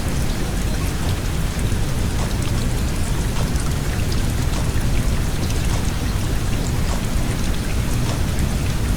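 Steady rain noise with many small scattered drop ticks, over a low, even fan hum.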